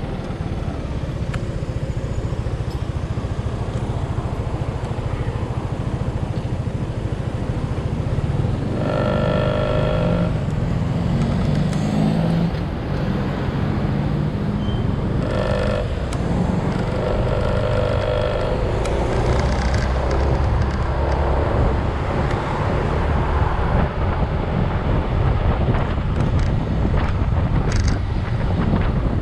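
Steady low rumble of a vehicle ride along a road in traffic. Three short spells of pulsed beeping tones sound about a third of the way in and around the middle.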